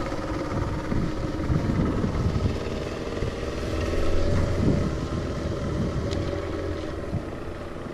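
A boat engine running steadily at an even pitch.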